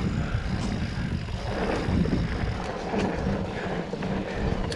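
Mountain bike rolling fast down a dirt singletrack: wind rushing over the camera microphone, the tyres running on dirt and the bike rattling and knocking over small bumps.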